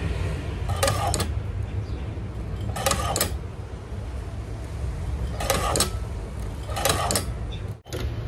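Shoe-patcher sewing machine stitching through a sneaker sole: four short bursts of rapid needle clatter, each a few stitches, over a steady low hum.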